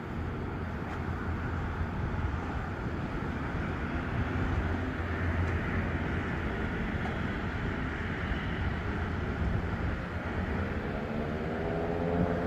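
Twin turboprop engines of an Embraer EMB-120 Brasilia running with a steady low drone. About ten seconds in, a rising whine of several tones comes in and grows louder as engine power increases.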